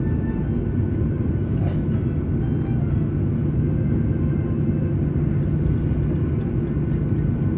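Airliner cabin noise while taxiing after landing: a steady low rumble of the engines and airframe heard from inside the cabin, with faint steady whine tones above it.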